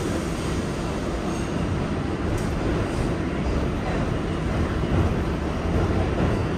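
R142A subway train running along the track, a steady rumble of wheels and car noise heard from on board.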